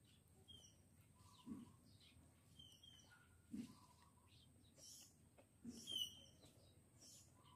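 Faint, quiet ambience of small birds chirping now and then, mixed with soft chewing and mouth sounds from someone eating. The sounds come every couple of seconds, with the loudest one about six seconds in.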